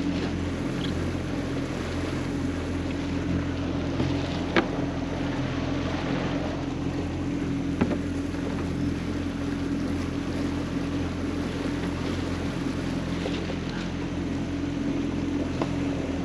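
Boat motor running steadily while the boat travels along the river, with wind and water noise under it. Two short sharp clicks about four and a half and eight seconds in.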